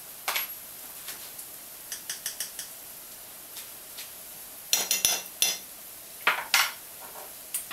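A metal teaspoon clinks and taps against a spice jar and a frying pan as turmeric is scooped and tapped out. There is a quick run of light ticks about two seconds in and a louder cluster of clinks around five seconds, over a faint steady hiss of leeks frying in oil.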